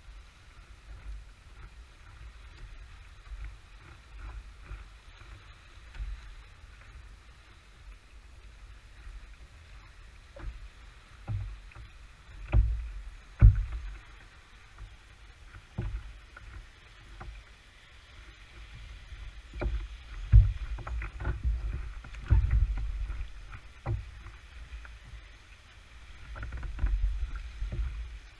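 Irregular knocks and thumps on a plastic fishing kayak's hull as the angler shifts and works the rod, over a low rumble of water and wind picked up by a camera mounted on the kayak. The loudest knocks come as a pair about halfway through, with another cluster about two-thirds of the way in.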